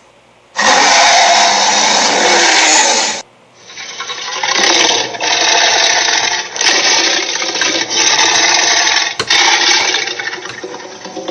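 Cartoon sound effects from SpongeBob SquarePants played one after another. A loud rushing burst of about two and a half seconds cuts off abruptly, and after a short gap a longer run of rough, churning noise follows, broken by several sudden cuts.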